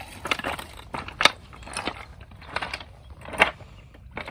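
Footsteps on loose shoreline stones: a series of uneven steps, with the rocks knocking and shifting underfoot, two of them louder than the rest.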